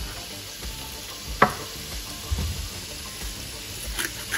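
Pots cooking on the stove: a pot of vegetable broth at a rolling boil, bubbling steadily, with sizzling from the pans beside it. A sharp click comes about a second and a half in.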